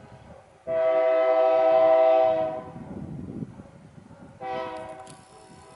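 Diesel freight locomotive's air horn sounding from an approaching train, not yet in sight: one long, loud blast of about two seconds, then a second, weaker blast starting about four and a half seconds in and fading.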